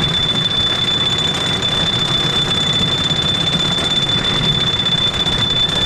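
Tonnerre 2 Zeus wooden coaster train rolling on the track, a low rumble under a steady, unbroken high-pitched whine.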